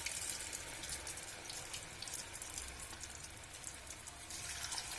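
Flour-coated potato strips sizzling and crackling as they deep-fry in hot oil, a steady hiss that thickens a little near the end.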